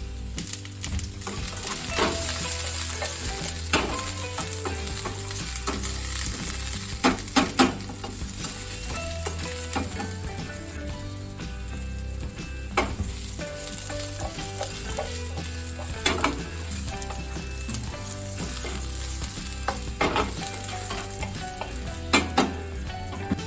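Food sizzling in a hot pan as it is stir-fried, with sharp knocks of a metal utensil against the pan every few seconds, including a quick run of three about seven seconds in.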